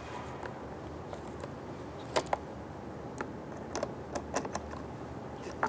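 Scattered small clicks and taps, irregularly spaced and in small clusters, as plastic nuts are handled and started onto the plastic pins of a door trim panel.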